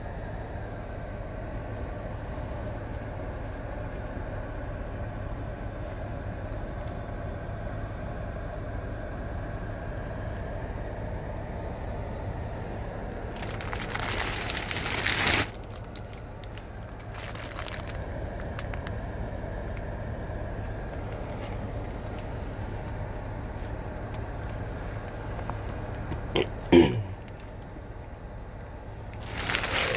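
Clear plastic bag crinkling and crackling as a hand handles it, loudest for about two seconds midway with shorter bursts later and a sharp click near the end, over a steady fan hum inside a car.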